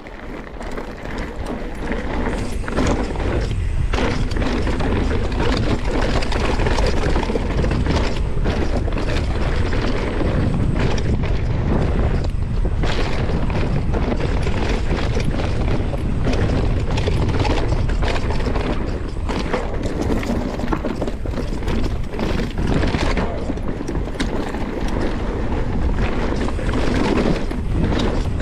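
Wind buffeting the action camera's microphone over enduro mountain bike tyres rolling on gravel and dirt trail, with frequent short clicks and rattles from the bike over bumps. It grows louder over the first couple of seconds as the bike picks up speed, then stays steady.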